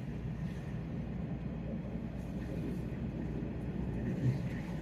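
Nishitetsu electric train running along elevated track, heard from inside the front car as a steady low rumble of wheels and running gear, with a brief thump near the end.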